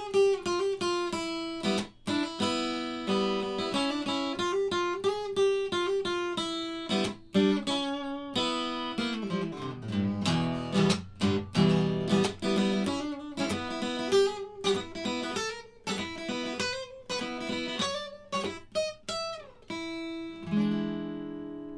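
Solo acoustic guitar played fingerstyle and strummed, the instrumental closing bars of a song. The notes slide down in pitch about nine seconds in, and the playing ends on one held, ringing chord near the end.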